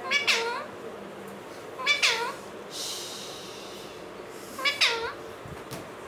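Alexandrine parakeet calling: three drawn-out calls a couple of seconds apart, each sliding down in pitch.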